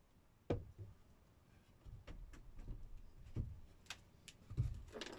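Scattered light knocks and taps from work on plywood overhead cupboards, about eight in all, the loudest about half a second in.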